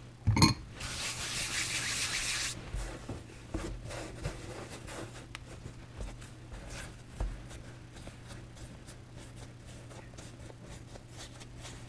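Hands working baguette dough on a floured silicone baking mat. A knock about half a second in is followed by about two seconds of hands rubbing and spreading flour across the mat, then soft pats and rubbing as the dough is pressed and shaped.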